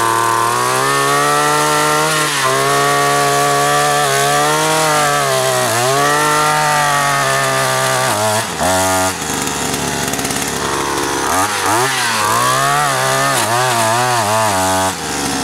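Fuxtec 50 cc two-stroke petrol earth auger running at high revs while boring a post hole in hard soil. The pitch repeatedly sags and climbs back as the auger bites and is throttled, with quick rapid swings in the second half, and it drops off near the end.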